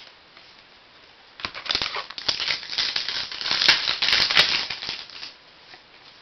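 Crinkly plastic wrapping being handled by hand: a crackling crinkle with many small clicks, starting about a second and a half in and lasting about four seconds.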